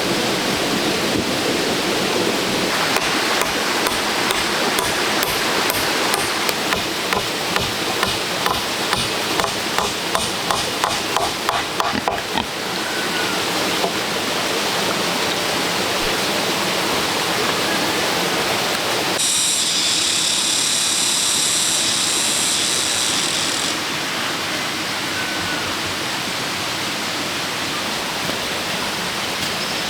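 Steady rushing noise throughout. For several seconds in the first half it carries a run of sharp knocks, about two a second and speeding up. A high steady buzz comes in a little after the middle and lasts about four seconds.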